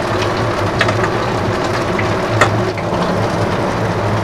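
Pempek fish cakes deep-frying in hot oil in a wok: steady sizzling with scattered pops and crackles, the sharpest about two and a half seconds in.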